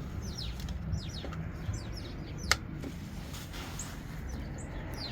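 Small birds chirping over and over in short, quickly falling chirps, over a steady low rumble. One sharp click about halfway through.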